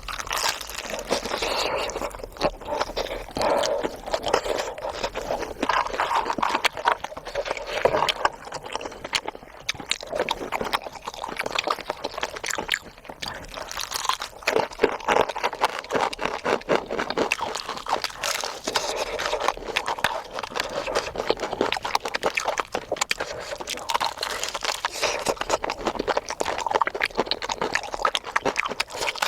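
Close-miked mukbang eating sounds: wet chewing, lip smacking and crunching of cheesy fried food, with many quick mouth clicks throughout.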